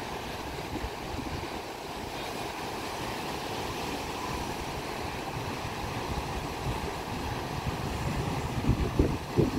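Ocean surf breaking in rows of waves, a steady wash of noise, with wind buffeting the microphone in low gusts near the end.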